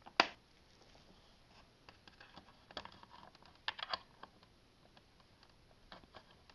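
Light plastic and metal clicks as a laptop hard drive is slid and lifted out of its bay: one sharp click about a quarter-second in, then scattered faint clicks and taps.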